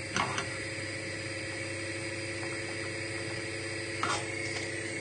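Steady low hum with a hiss beneath it, and a spoon scraping briefly in a saucepan of melting butter just after the start and again about four seconds in.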